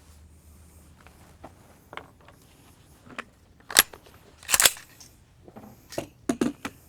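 A few short, sharp clicks and knocks, with two louder ones a little under a second apart near the middle and a quick cluster of small clicks near the end.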